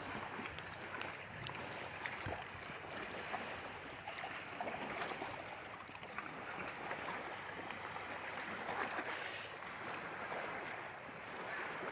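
Steady outdoor rushing noise of wind and small lake waves, with a few faint scattered clicks.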